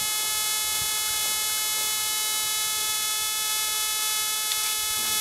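A steady humming tone with a stack of overtones, unchanging in pitch and level, that comes out through a hole. It is heard as a weird noise.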